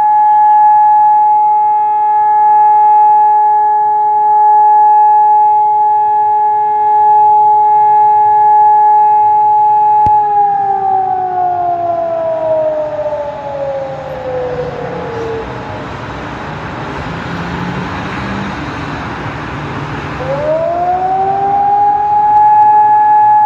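Civil defence siren holding one steady tone, then winding down in pitch over about five seconds. It turns to a noisy low rumble for a few seconds, then winds back up to the steady tone about twenty seconds in.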